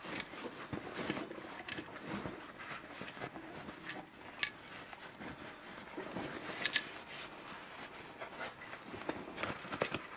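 Blue paper shop towel rustling and rubbing against the stamped-steel receiver of an Ingram MAC-10 as it is wiped dry, with scattered sharp metal clicks, two louder ones about four and a half and seven seconds in.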